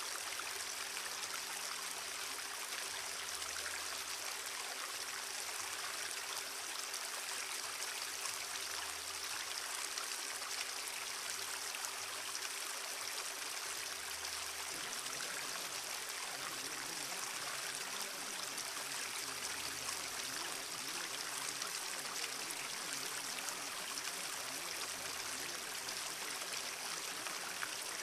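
Steady running water like a flowing stream, an even hiss without breaks, with faint steady low tones underneath.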